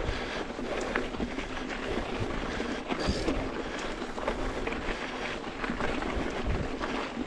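Yeti SB150 mountain bike riding a dirt trail: a steady rush of tyres over dirt and gravel, broken by frequent small knocks and rattles from the bike over the rough ground.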